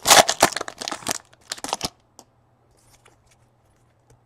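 Crinkling and tearing of a trading-card pack wrapper being opened and handled, loud for about the first two seconds, then a few faint clicks.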